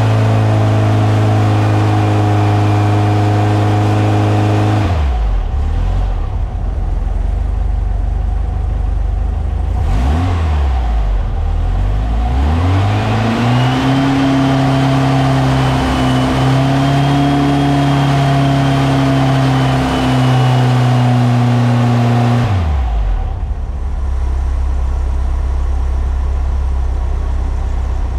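Brand-new 1600cc air-cooled Volkswagen flat-four running on an engine stand through easy load cycles. It is held at raised revs, drops back to idle about five seconds in, is blipped once, then revs up and holds steady for about nine seconds before settling back to idle.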